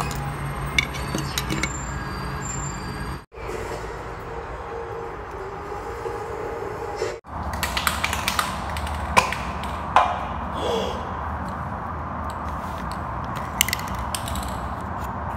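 Light clicks and taps of small plastic toy-train parts being handled and set down, a few at a time, over a steady background hum.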